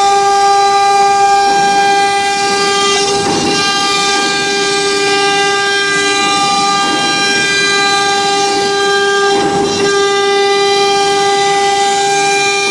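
Spindle of a 1325 CNC router running at high speed while its bit cuts a profile groove into a cabinet door panel: a steady high-pitched whine with overtones, with louder swells of cutting noise about three seconds in and again near ten seconds.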